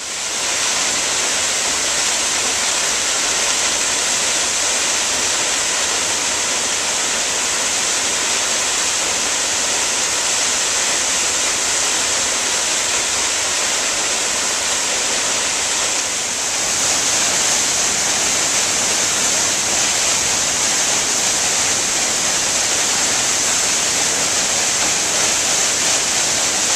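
Steady rush of water from a triple waterfall plunging over a limestone cliff. It dips briefly a little past halfway, then runs on slightly louder.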